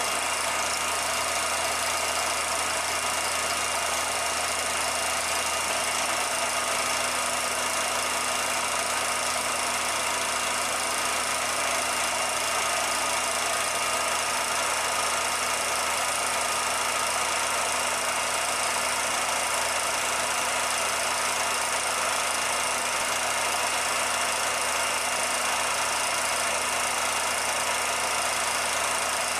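Steady machine-like running noise: an even hiss with a constant hum that never changes.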